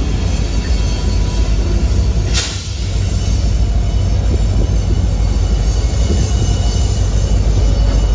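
Freight train rolling past at close range: steady low rumble of the cars' wheels on the rails and the Norfolk Southern diesel locomotive coming by, with faint wheel squeal. A brief burst of noise cuts in about two and a half seconds in.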